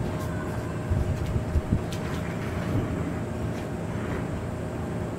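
Aerial fireworks heard from a distance: a steady low rumble, with a few faint pops and crackles about a second and two seconds in.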